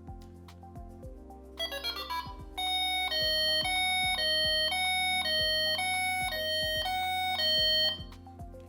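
Delkim Rx-D receiver's anti-theft security alarm sounding. A quick falling run of electronic beeps is followed by a loud two-tone electronic warble that alternates rapidly for about five seconds, then cuts off suddenly near the end.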